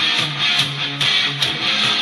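Rock song with electric guitar playing over a steady drum beat.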